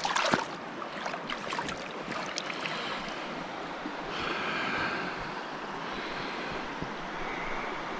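Trout creek water rushing steadily, with a few sharp clicks near the start.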